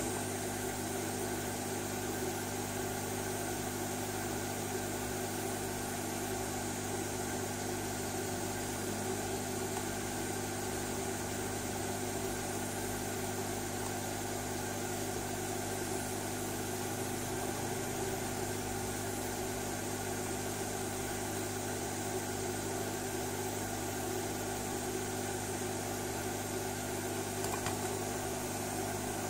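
A small motor or fan running with a low, steady hum that does not change.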